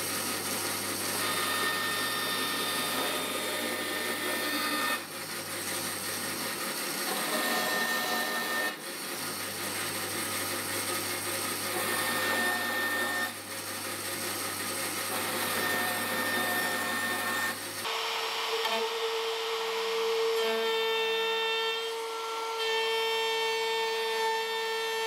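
A band saw runs with a steady low hum, cutting the rough rounded corners off a wooden tabletop. About three quarters of the way through it gives way to a Makita trim router running with a high, steady whine, its flush-trim bit following a round multiplex plywood template to finish the corner.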